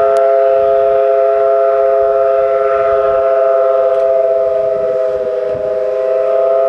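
An old Norwegian electric train's whistle blowing one long, steady blast: a chord of several tones held without a break.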